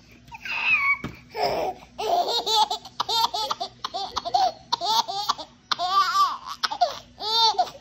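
A baby laughing: runs of short, high-pitched laughs, most of them from about two seconds in.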